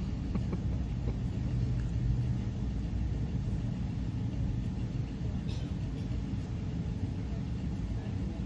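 Steady low rumble of background noise in a large indoor hall, with a few faint clicks near the start and again about five and a half seconds in.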